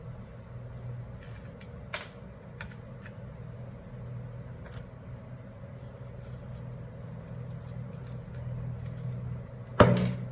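A steady machine hum with light scattered clicks and taps, and one loud knock near the end.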